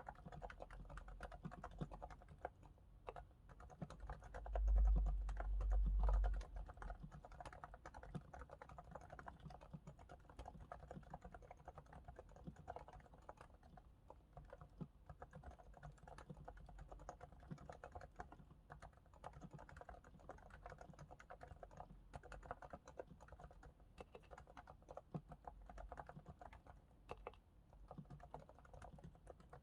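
Continuous fast typing on a Realforce R2S keyboard with silent 45 g uniform-weight Topre electrostatic capacitive switches, lubricated with Krytox 105 on the sliders and Krytox 205 on the stabilizers, giving soft, muted keystrokes. A low rumble comes in for about two seconds near the fifth second.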